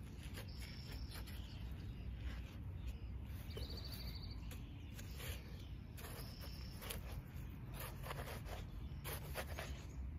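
Knife cutting into a watermelon: scattered short crunching and scraping strokes as the blade slices through the rind and flesh.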